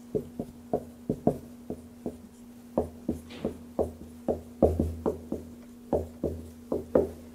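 Dry-erase marker writing on an easel-mounted whiteboard: a quick, irregular run of short taps and knocks as the letters are stroked, over a steady low hum.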